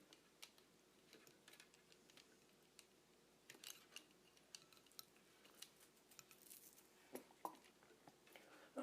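Near silence with faint, scattered small clicks and taps of rig parts being handled.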